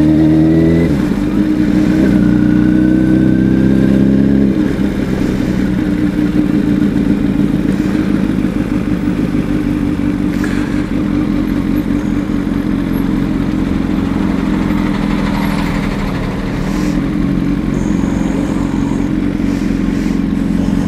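Honda CBR1000RR's inline-four engine running at low revs as the bike rolls slowly through traffic. The revs fall in the first second, hold, then drop lower about four and a half seconds in and stay steady.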